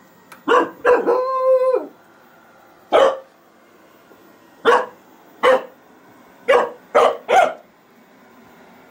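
Cockapoo puppy barking at a robot vacuum cleaner. It gives two quick barks, then a drawn-out level howl, then six more sharp barks at uneven intervals.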